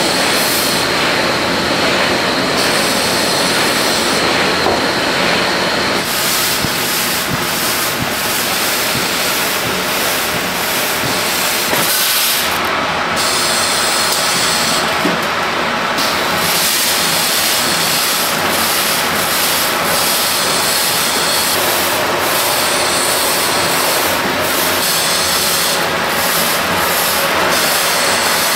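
Large industrial snack fryer running: a vat of hot oil churned by rotating stirrer arms, with a loud steady hiss and rush.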